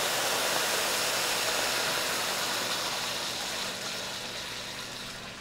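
Dark beer poured into a hot stainless steel sauté pan of browned ribs, hissing and sizzling as it hits the pan to start a braise. The sizzle holds steady, then dies down over the last couple of seconds.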